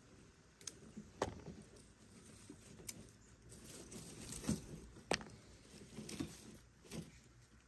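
Peanut pods being picked off the vines and dropped into an enamel pot: faint, scattered light clicks, about seven in all, over a soft rustle of the leafy vines.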